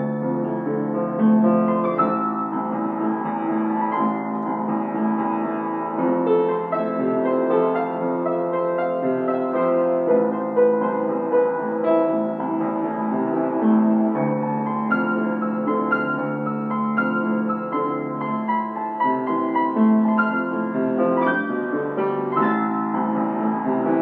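Piano music playing continuously, with long held notes that overlap one another.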